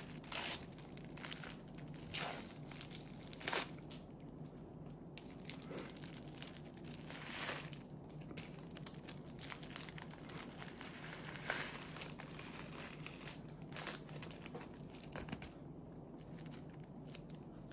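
Plastic film wrapper of an onigiri rice ball crinkling and tearing as it is peeled open and pulled off the seaweed, in irregular rustles and crackles that die away near the end.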